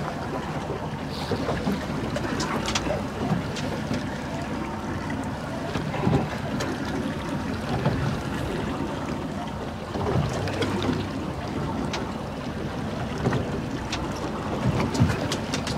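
Wind buffeting the microphone and water washing against the hull of an offshore fishing boat, with a few light knocks and clicks scattered through.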